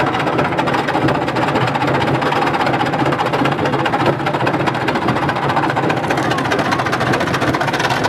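Washing machine on fire while running: a steady motor-like running sound with the dense crackle and hiss of the flames, with no break.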